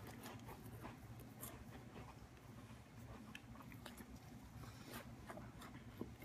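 Faint chewing of Ritz crackers with peanut butter by two people with full mouths, scattered small clicks and smacks over a low steady room hum.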